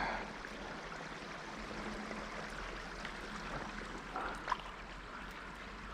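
Creek water running steadily, a soft even rush, with a faint knock about four and a half seconds in.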